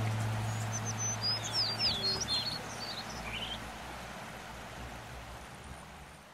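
A small songbird chirping: a quick run of short, high, falling notes starting about a second in, over a steady hiss that fades away near the end. The tail of a held music chord dies out at the start.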